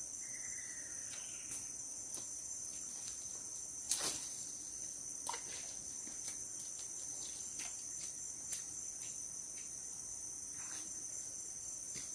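Steady high-pitched chorus of crickets and other insects at dusk, with scattered light clicks, the loudest about four seconds in.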